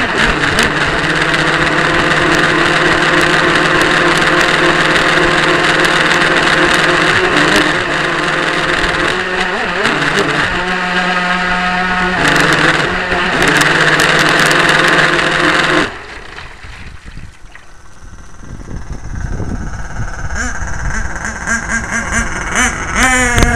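Radio-controlled powerboat's motor heard from on board, running steadily at speed with water and spray noise. About two-thirds of the way through, the motor note stops suddenly and only quieter water and wind noise remain as the boat slows. A short rising whine comes near the end.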